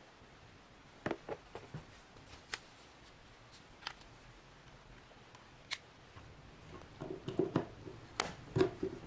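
Handling sounds of USB cables and a plastic battery charging case: scattered light clicks as a connector is plugged in, then a quick cluster of clicks and knocks near the end as the case is set down.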